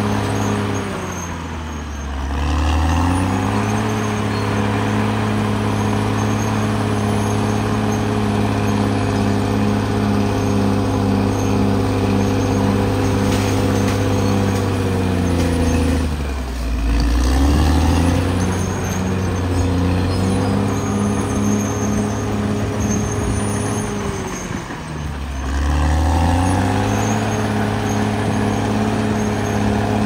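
Caterpillar D6R XL bulldozer's diesel engine running steadily, its revs sagging and recovering three times, about a second in, past the middle and near the end.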